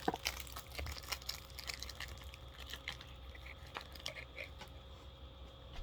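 Faint, scattered crinkling and small clicks of a taped package's wrapping being handled.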